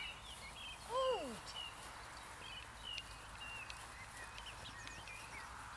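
Small birds chirping in the background, many short high chirps scattered throughout, with one short rising-and-falling pitched call about a second in.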